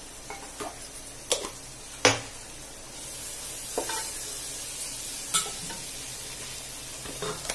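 Slotted wooden spatula stirring and scraping an onion-tomato masala frying in oil in a non-stick pan, with a few sharp knocks against the pan, the loudest about two seconds in. The sizzle grows louder from about three seconds in as the masala is fried until the oil rises to the top.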